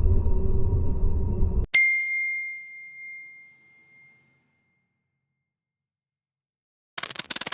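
A low rumbling drone cuts off abruptly, and a single high bell-like ding rings out and fades over about two and a half seconds. After a couple of seconds of silence, a scratchy crackling noise starts near the end.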